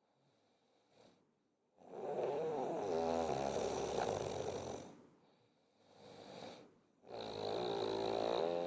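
A sleeping person snoring: two long snores about five seconds apart, each lasting roughly three seconds, with a softer breath between them.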